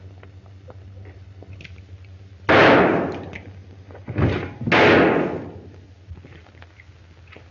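Two loud revolver shots about two seconds apart, each ringing out in a long fading echo, with a smaller bang just before the second.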